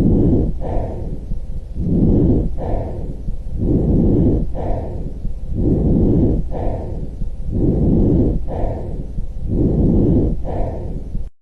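Normal vesicular lung sounds: breathing heard through the chest as a soft noise with no musical tone, rising and falling in a regular cycle of about one breath every two seconds. About five to six breaths, cutting off near the end.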